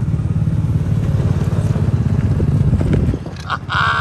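A 200cc off-road go-kart engine running steadily under throttle with an even pulse. It cuts off abruptly about three seconds in, and a brief higher-pitched sound follows near the end.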